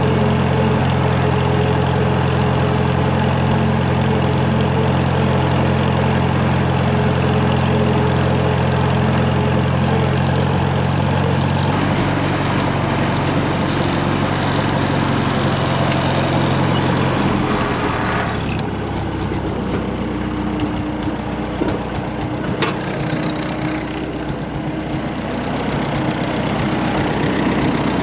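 Farmall M tractor's four-cylinder gasoline engine running steadily as the tractor is driven. Its note changes about 12 seconds in, then drops to a lower, quieter note about 18 seconds in.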